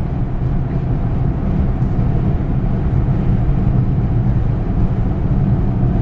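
Steady road and engine noise inside a moving car's cabin, mostly a low rumble.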